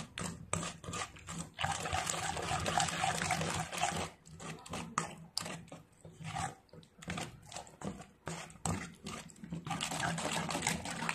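Metal spoon stirring a wet minced pork mixture in a stainless steel bowl: sticky squelching, with the spoon repeatedly clicking and scraping against the bowl.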